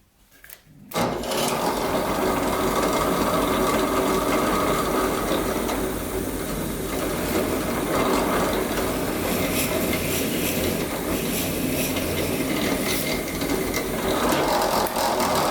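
Electric power tool running continuously as it works a sheet of plywood, starting about a second in.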